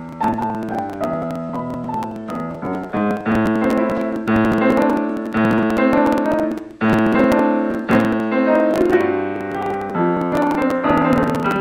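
Steinway & Sons grand piano played solo, a steady flow of melody notes over held chords, with a short break about seven seconds in followed by a loud chord.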